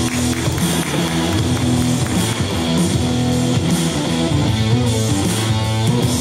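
Rock music with electric guitar over a steady beat.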